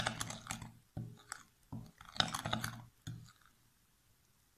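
Metal spoon scraping and clicking against a glass mixing bowl in irregular bursts, stirring flour into a wet batter of wine, oil and sugar; the stirring stops about three seconds in.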